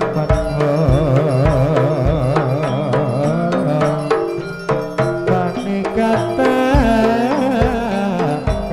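Javanese gamelan ensemble playing a gending: bronze metallophones ringing held notes, kendang drum strokes keeping the beat, and a wavering, ornamented melody line above.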